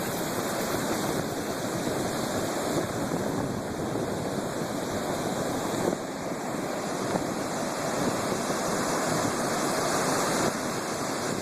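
Heavy storm surf: waves breaking and churning in a continuous, dense rush of water noise.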